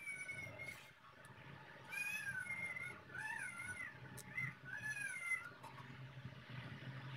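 Short, high-pitched, wavering animal calls, about five in a row, each under a second long, over a steady low hum.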